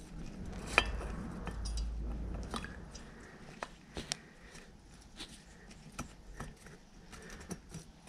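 Light, scattered metallic clicks and taps as an aluminium two-stroke cylinder is eased by hand down its studs over the piston and its rings, in a Yamaha RD50 engine being assembled.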